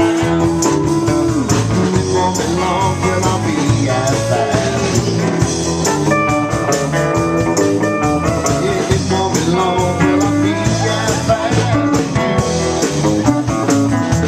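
Band music led by guitar, in a blues and country-rock style, playing without a break.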